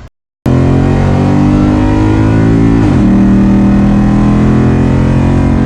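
Ford Mustang GT's 5.0 V8 at full throttle during a drag run, its pitch climbing, then dropping sharply on an upshift about three seconds in before pulling again.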